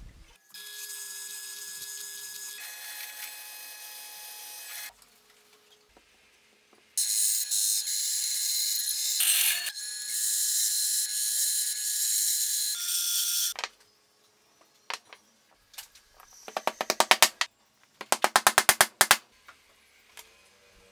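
Workshop power tools in turn: a machine runs steadily for a few seconds, then a bandsaw runs and cuts plywood, louder, through the middle. Near the end come two short runs of rapid rattling clicks.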